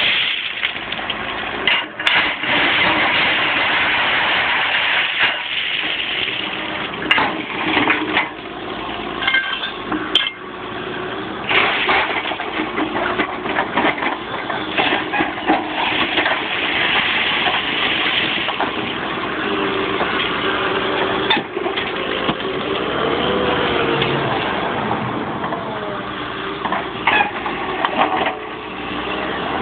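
Huddig 1160 backhoe loader running under hydraulic load as its sleeper-changer blade and rotator work a concrete railway sleeper, with the engine and hydraulics changing pitch and several sharp clanks and scrapes of steel and ballast stones.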